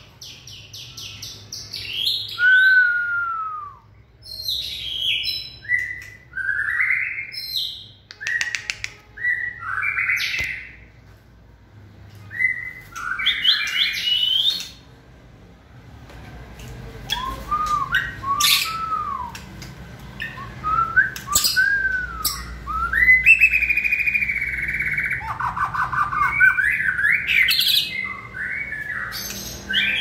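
Male white-rumped shama singing in a cage: a varied run of clear whistled phrases, up-and-down slurs and rapid trills, mixed with sharp clicks and short pauses. The bird is in full breeding condition ('on fire'), the state in which shamas sing hardest.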